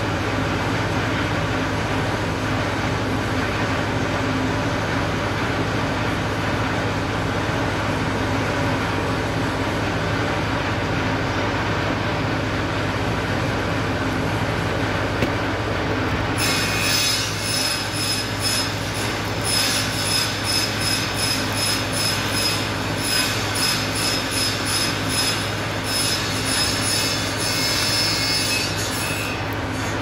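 Steady low mechanical hum. About halfway in, a DeWalt D25871 demolition hammer's electric motor is switched on and runs for about thirteen seconds without hammering, a high screeching whine that swells and eases, and it stops just before the end. This is a test run after a new armature, switch and carbon brushes were fitted.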